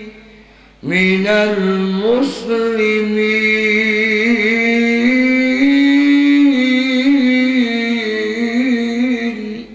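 A man's voice singing a long, drawn-out chant in the melodic style of a Bengali waz preacher, holding notes and bending them slowly. It starts about a second in, breaks briefly around two seconds, and stops just before the end.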